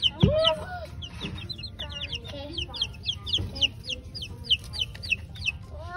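Day-or-two-old chicks peeping in a brooder: a rapid string of short, high chirps that slide downward, from several birds at once. A brief, louder voice-like sound rises and levels off near the start.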